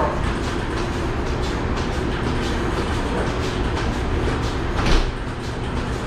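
Milking-parlor machinery running steadily: a low hum with a rumbling, rattling noise, and a brief louder knock about five seconds in.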